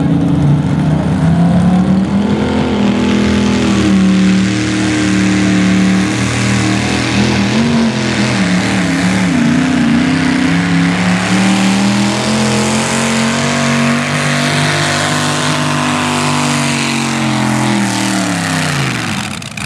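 V-8 engine of a hot rod pulling tractor running flat out as it drags the weight sled down the track, its pitch wavering with the load. Near the end the revs fall away as the pull ends.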